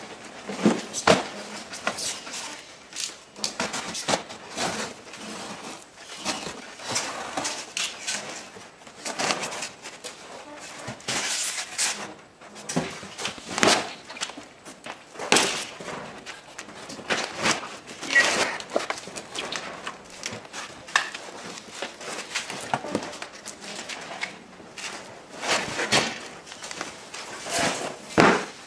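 Cardboard carton being pulled up and off a gas-welding cart: irregular rustling and scraping of cardboard, with scattered sharp knocks.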